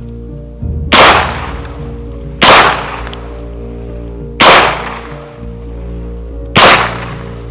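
Four shots from an AR-style .410 shotgun, spaced about one and a half to two seconds apart, each with a short echoing tail, over background music.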